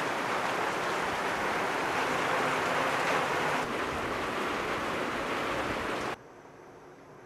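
Steady rain falling, an even rushing hiss that cuts off abruptly about six seconds in, leaving only faint hiss.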